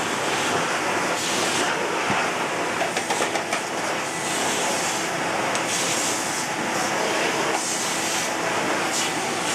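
Volta U240 vacuum cleaner with an 850 W motor running steadily, its airflow hiss growing louder for a moment a few times.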